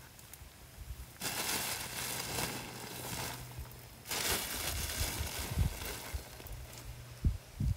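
Compost and soil being heaped and pressed over a butternut squash vine to bury it: crunching, crumbling scrapes in two stretches, with a few dull thumps in the second half.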